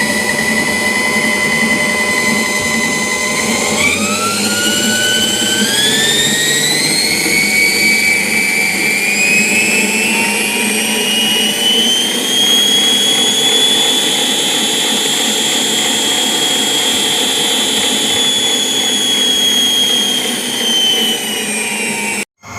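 Russell Taylors SM1500 stand mixer running on a replacement drive belt, its motor giving a loud whine. The pitch steps up about four seconds in and keeps climbing as the speed is raised, then holds steady. It cuts off suddenly near the end.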